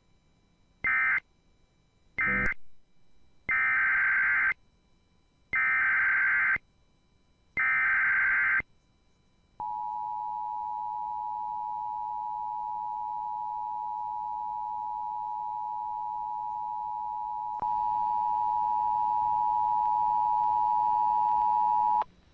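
Emergency Alert System SAME data bursts, harsh buzzy digital chirps. Short end-of-message bursts close the previous alert, then three longer header bursts about two seconds apart open the next alert. They are followed by the EAS two-tone attention signal, a steady dual-tone alarm for about twelve seconds that gets louder and picks up extra lower tones near its last four seconds, then cuts off sharply.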